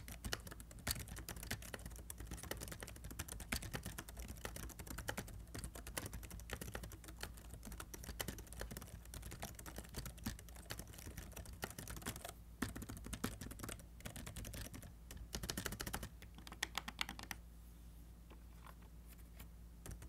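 Typing on a Corsair K83 wireless keyboard's low-profile scissor-switch keys: a quiet, fast run of light key clicks with a few short gaps. It is the standard sound of a scissor mechanism.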